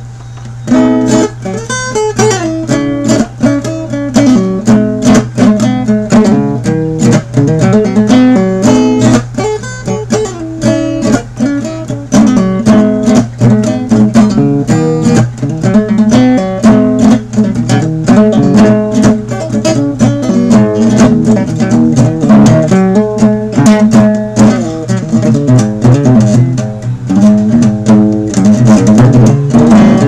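Steel-string cutaway acoustic guitar strummed in a steady rhythm, starting about a second in, with a low steady hum underneath.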